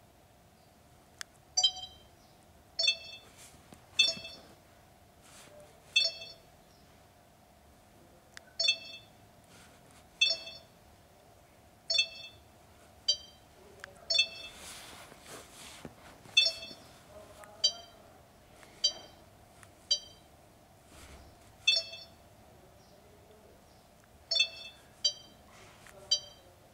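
Sony HDR-CX580 camcorder's touchscreen confirmation beeps: a short electronic beep at each tap while paging through its settings menus, about seventeen of them at uneven intervals of one to two and a half seconds.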